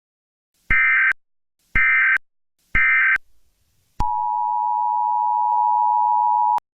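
Emergency Alert System tones: three short bursts of screechy digital data tones about a second apart, then the steady two-tone attention signal, a harsh blended hum of two pitches (853 and 960 Hz), which cuts off suddenly after about two and a half seconds.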